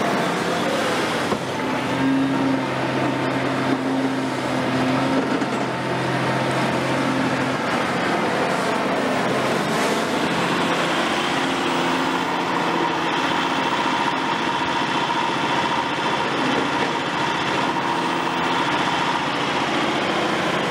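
Cat 352F crawler excavator's diesel engine running steadily under working load, with a low drone in the first half and a higher steady whine joining in the second half.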